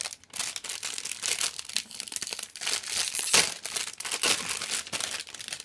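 Clear plastic bag holding pink model-kit runners being handled, crinkling, with a louder crackle about three seconds in.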